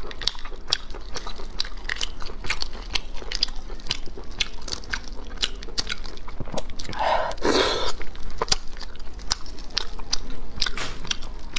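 Close-miked eating of snails in sauce: shells clicking between gloved fingers, with biting and chewing and many short sharp clicks throughout. One louder mouth sound comes about seven seconds in.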